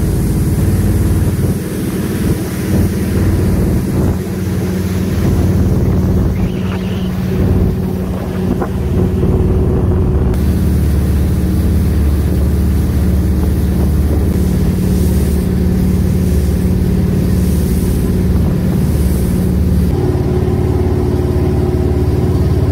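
Jet boat's engine running steadily at speed, with the rush of water and wind around the hull; the engine note shifts slightly about ten seconds in and again near the end.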